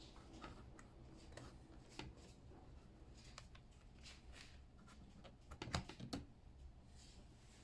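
Near silence with faint scattered clicks and handling noises, a few louder clicks about six seconds in.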